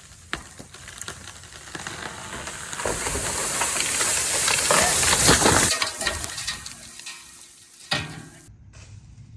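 Water oak falling: a crackling rush of branches and leaves that builds for about three seconds, peaks, and breaks off, as the crown comes down through the air and hits the ground. A single sharp knock follows near the end.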